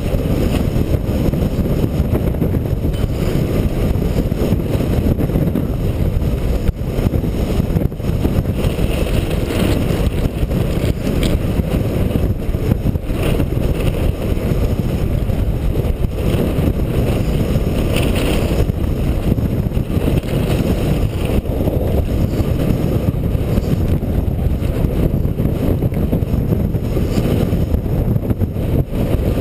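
Steady wind buffeting the microphone, mixed with the rumble of a Blokart land yacht's small wheels rolling over a dirt track, with a faint knock now and then.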